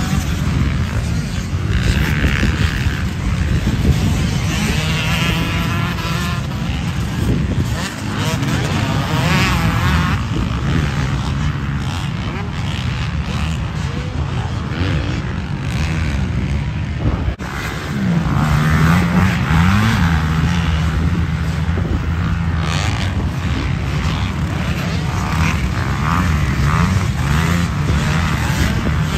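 Several motocross dirt bikes on the track, their engines revving up and dropping back again and again as the riders accelerate, jump and shift gears.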